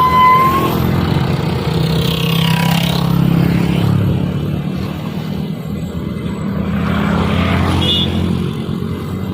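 Heavy truck's diesel engine pulling hard up an incline, its low note swelling a few seconds in and then easing off. A brief high tone sounds right at the start.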